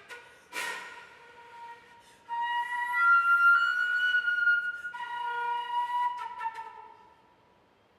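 Concert flute playing a solo line: a breathy accented attack, then long sustained notes that step up in pitch, with a few quick short notes before it fades out.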